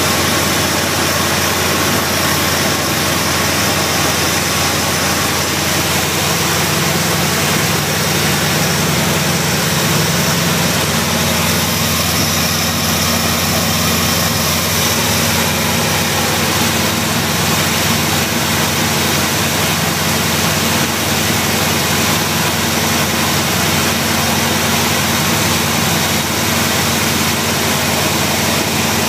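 1975 Plymouth Valiant engine, freshly fitted with an Edelbrock carburetor and other new performance parts, running at a steady idle in its first run with them.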